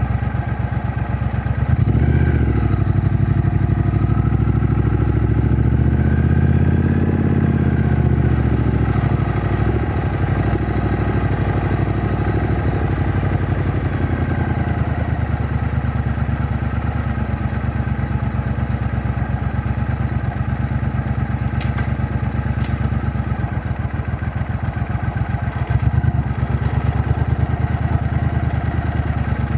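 A Triumph Bonneville T120's 1200 cc parallel-twin engine running under way, heard from the rider's position with a pulsing exhaust note. The revs climb about two seconds in, ease off after about eight seconds, and pick up again near the end.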